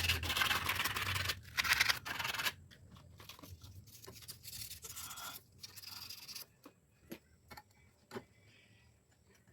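Scraping and scratching in a few loud strokes for the first two and a half seconds, then softer scrapes. After that come scattered light clicks and taps.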